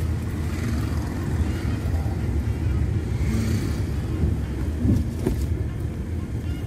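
Car cabin noise while driving: steady low rumble of engine and road. A couple of light clicks come about five seconds in.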